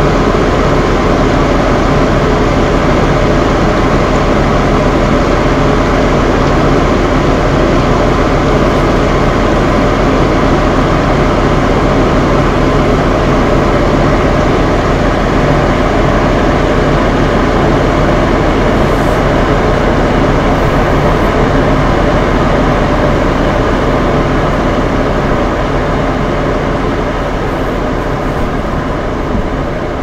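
Two bathroom fan heaters running together, mixed with rain: a steady rush of fan noise with a low motor hum. The sound slowly fades down near the end.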